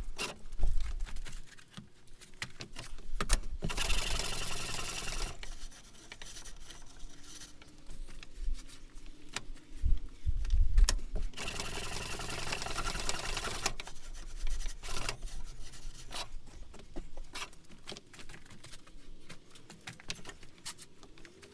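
A wooden-framed sand riddle being shaken back and forth on a steel frame, rattling and knocking as damp foundry molding sand is sifted through its screen for tempering. Twice, about four seconds in and again around twelve seconds, there is a stretch of hissing sand, with heavier thumps just before the second.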